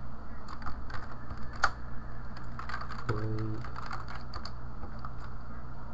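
Computer keyboard typing: irregular key clicks, one louder than the rest about one and a half seconds in, thinning out after about four and a half seconds, over a steady low hum.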